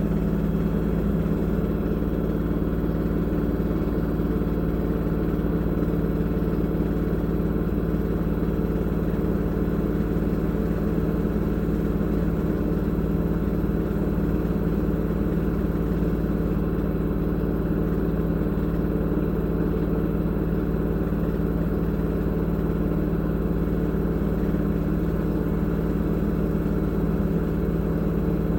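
LG direct-drive front-loading washing machine on a spin-only cycle, its drum spinning at a steady speed with a constant motor hum over a low rumble.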